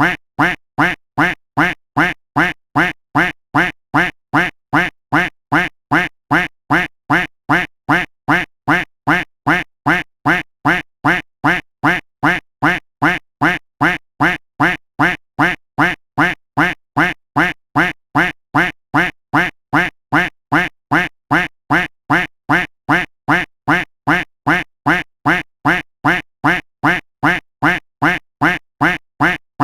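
A duck quack sound effect looped over and over, the identical short quack repeating at a quick, even pace.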